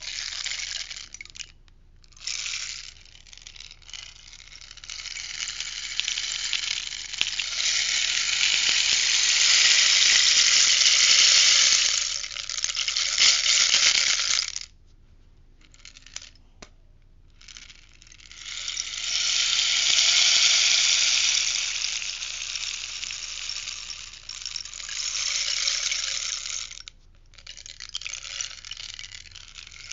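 Rainstick being tipped: small pellets trickle down through it in a rattling hiss that swells and fades. Two long cascades of about ten seconds each, the first cutting off suddenly halfway through, with shorter, fainter trickles between them.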